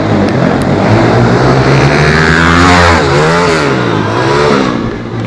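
Pit bike engine running hard. About three seconds in its pitch swings up and down several times in quick throttle revs, then falls away near the end.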